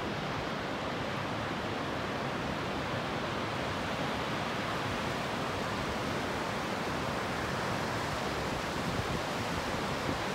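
Chippewa Falls and the rapids below it: a steady, even rush of falling and running water.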